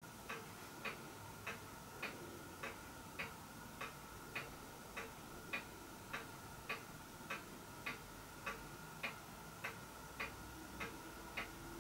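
Faint, steady ticking at an even pace of a little under two ticks a second, as of a clock, over a faint steady hum.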